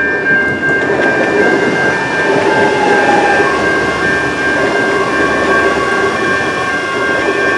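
Adelaide Metro electric train running past close by, a steady rumble of wheels on rail under several high whining tones that shift in pitch in small steps.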